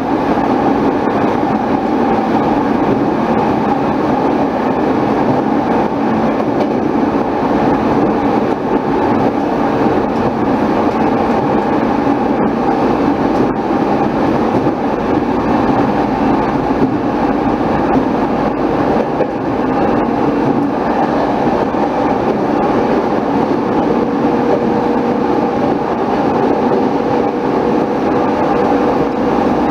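Saikyo Line commuter train running steadily at speed, heard from inside the carriage: an even rumble of wheels on rail and car noise, with a faint steady hum coming in about three-quarters of the way through.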